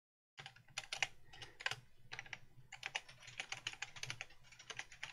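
Faint, rapid, irregular keystrokes on a computer keyboard, starting about half a second in.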